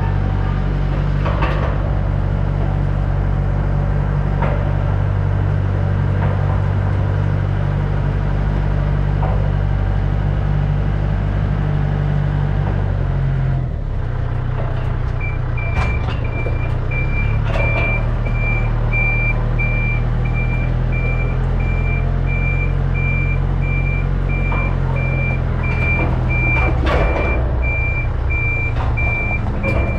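Vehicle engine running under load while moving a heavy trailer. Its pitch changes about halfway through, and then a reversing alarm starts beeping steadily. A few sharp metal clunks are heard along the way.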